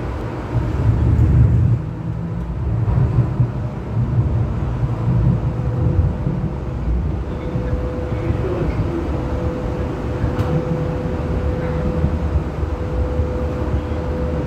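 First-generation Hong Kong Light Rail car (car 1011 leading) running along the track, heard from inside: a steady low rumble of wheels and running gear with a thin steady whine that grows clearer from about halfway on. There is a single sharp click about two-thirds of the way in.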